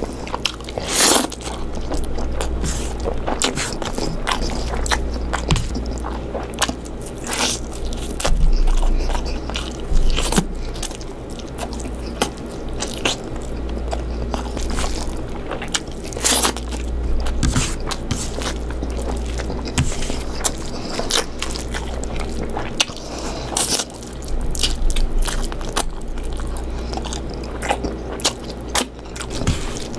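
A person eating chicken curry: chewing and biting, with many scattered sharp clicks and scrapes, over a steady low hum.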